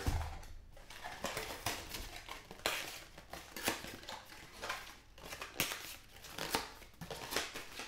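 Cardboard box of 2013-14 Contenders hockey cards being opened and its wrapped card packs handled: irregular crinkling of the pack wrappers and rubbing of cardboard, with a few sharp clicks.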